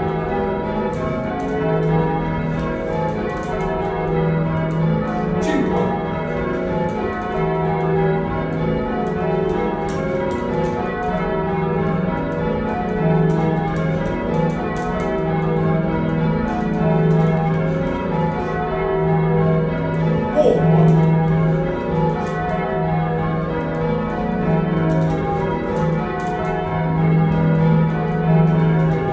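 Heavy ring of six church bells, cast by John Taylor & Co in 1925 with a tenor in E-flat, being change-rung: the bells strike one after another in a steady, continuous sequence, their tones overlapping. Heard from the ringing room below the bells.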